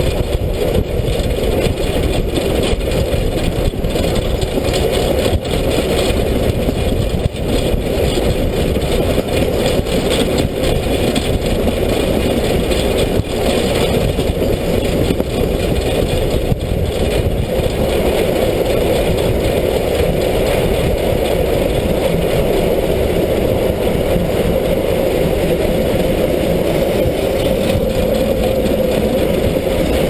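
Steam locomotive running along the line, heard close up from the side of the engine: a steady, dense noise of its running gear and exhaust.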